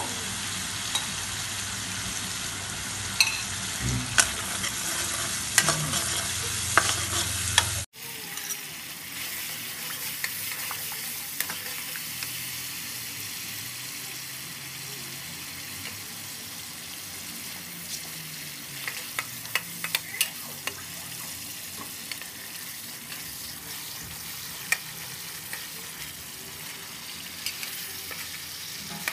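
Sweet-and-sour sauce sizzling in a metal wok while a steel spatula stirs it, with scattered sharp clicks and scrapes of the spatula against the pan. The sizzle drops quieter about eight seconds in.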